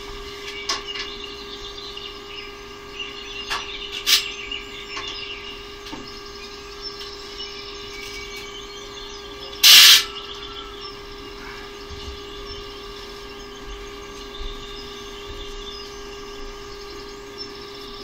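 Steady hum with faint bird chirps and a few light clicks, broken about ten seconds in by one short, loud hiss.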